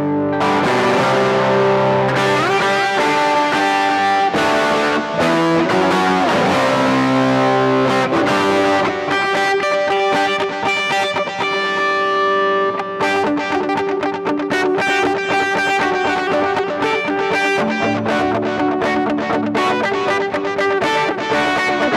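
Electric guitar played through effects with some distortion, running through melodic lines, with sliding pitch bends about six seconds in and quicker note runs later on.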